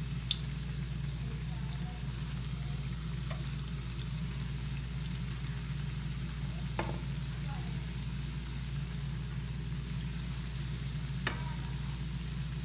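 Rings of churro dough frying in hot oil in a frying pan, with a steady sizzle and fine crackle. Two brief sharp clicks come about 7 and 11 seconds in.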